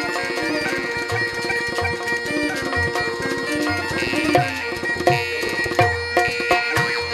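Rajasthani folk instrumental music for murli, kamaicha and morchang: a steady drone under fast, dense hand-drum strokes and deep drum beats, with a few sliding melody notes.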